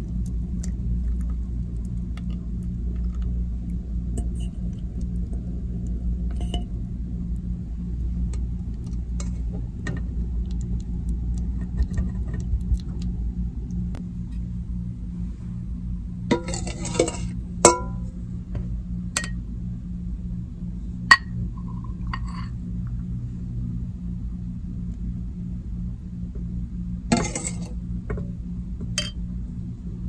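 Metal ladle clinking and scraping against a stainless steel bowl of strained custard, over a steady low hum. In the second half come several sharp clinks and two brief scrapes.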